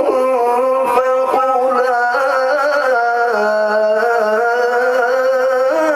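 Male Quran reciter singing one long melodic phrase in tajwid style, stretching the vowel with ornamented pitch steps and settling on a lower note about halfway through. The uploader says his bad cough strongly affects his voice.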